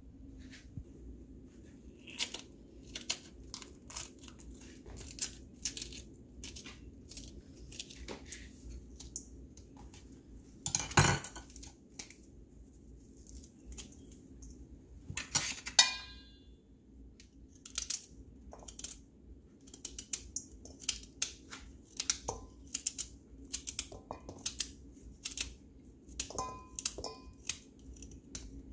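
Food being prepared by hand in a stainless steel bowl: a knife slicing a carrot into rounds held in the hand, giving many short crunchy clicks, with the pieces dropping into the bowl. A louder knock comes about 11 seconds in, and the metal bowl rings briefly about 15 seconds in.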